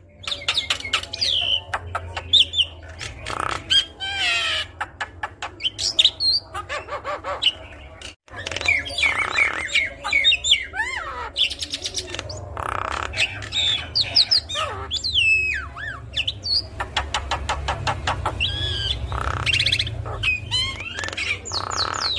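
Javan myna (jalak kebo) singing a long, varied song: rapid rattling clicks, whistled notes gliding up and down, and harsh squawky calls, one after another, with a brief break about eight seconds in.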